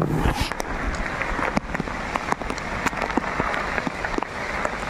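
Heavy rain falling: a dense, steady patter with many sharp single drops ticking through it.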